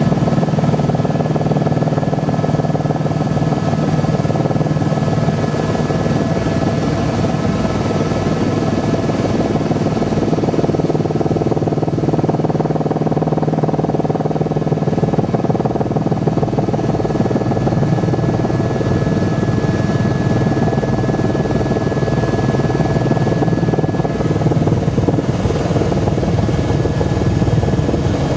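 Helicopter engine and rotor running steadily in flight, heard from inside the passenger cabin: a constant whine over the fast, even beat of the rotor blades.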